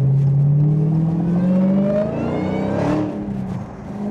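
Supercharged 6.2-litre HEMI V8 of a 2015 Dodge Challenger Hellcat accelerating, heard from inside the cabin. The engine note rises steadily and the supercharger's high whine climbs with it. Near the end the revs fall away briefly before picking up again.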